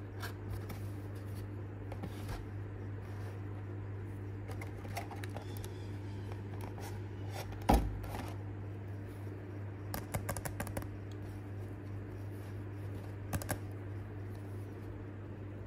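A Pokémon TCG binder collection's cardboard box and clear plastic pack tray being handled: scattered light taps and clicks, one sharper click about eight seconds in and a quick run of clicks around ten seconds, over a steady low hum.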